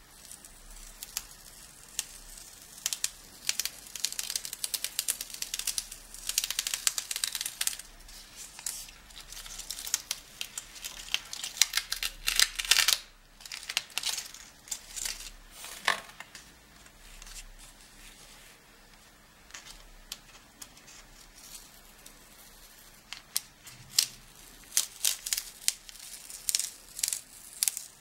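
Masking tape being peeled off the edges of watercolor paper, in irregular bursts of ripping and crinkling, with a quieter lull in the middle.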